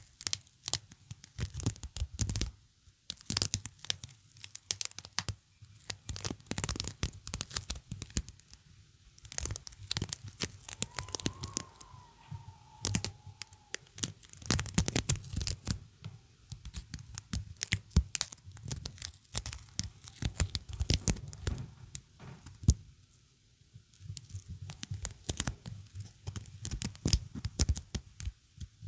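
Sticky adhesive surface being pulled apart and peeled close to the microphone: dense, irregular crackly snaps and tearing sounds in bursts, with a few short pauses.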